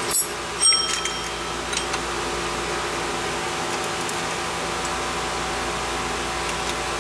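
Two sharp metallic clinks with a brief ring, metal tools or parts knocked together under a car during an oil change, followed by a couple of faint ticks, over a steady hum and hiss.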